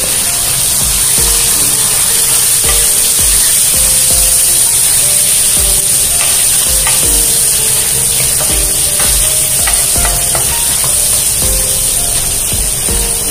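Chopped onions sizzling in hot oil in a nonstick wok, stirred and scraped with a wooden spatula, with a steady hiss and small clicks of the spatula. Background music with a steady beat plays underneath.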